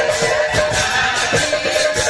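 Live folk kirtan music: barrel drums and brass hand cymbals playing a fast, even rhythm, with a few held melody tones over it.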